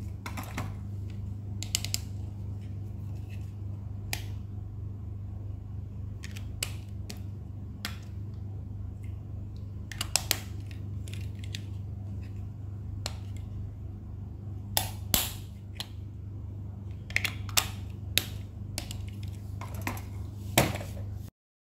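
Hard plastic handled by hand: scattered clicks, taps and short crinkles as a train-shaped plastic stationery toy and its clear plastic box are turned over, over a steady low hum. The sound cuts off near the end.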